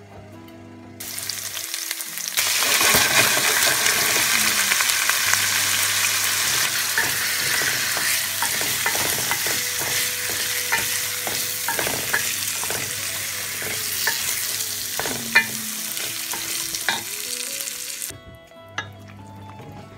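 Raw risotto rice and squash chunks frying in hot olive oil in a stainless steel pot: a loud, steady sizzle with the scrapes and clicks of stirring, and one sharper clack about fifteen seconds in. The sizzle starts about a second in, swells a moment later, and cuts off near the end as broth goes into the pot.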